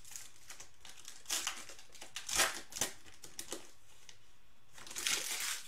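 Foil trading-card pack wrapper being torn open and crinkled by hand: several short crackly rustles, with a longer one near the end.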